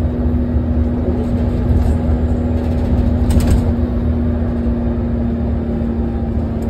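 Irisbus Agora L articulated city bus engine running steadily with a deep hum, a short hiss about three and a half seconds in.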